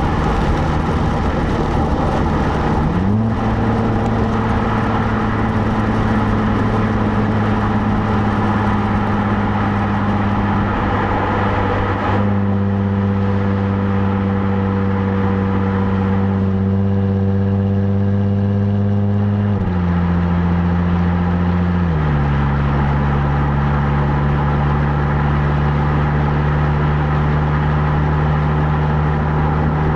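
Stock exhaust of a 2017 Jaguar F-Type, heard from the rear of the car while driving at a steady pace, with a droning engine note. The pitch jumps up about three seconds in and drops in two steps past the middle, over steady road and wind noise.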